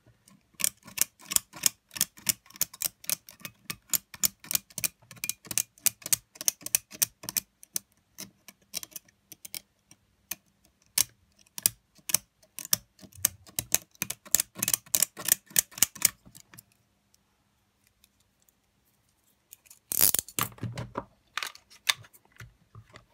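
A blade scraping battery corrosion off the metal inside a Sony WM-FX811 cassette Walkman: quick scratching strokes, about four a second, for about sixteen seconds. After a pause, a short louder burst of scraping or handling noise near the end.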